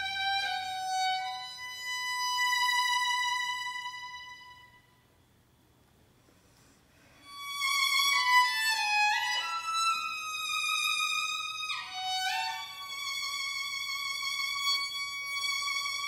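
Solo violin playing long held notes, breaking off for about two seconds of near silence midway, then resuming with slides between some of the notes.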